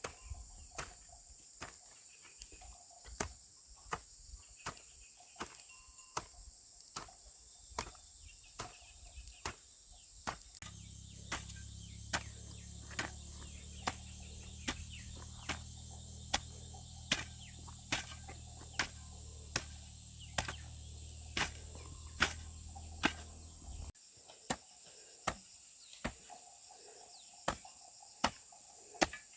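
Repeated sharp tool strikes, a little more than one a second, as in steady chopping or hammering, over the constant chirping of crickets. A low hum joins about ten seconds in and stops suddenly a few seconds before the end.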